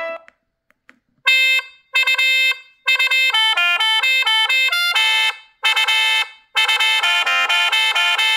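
Emporia TALK comfort mobile phone playing one of its built-in ringtones through its loudspeaker: an electronic melody that starts about a second in with two short notes, then runs on as a quick sequence of bright beeping notes.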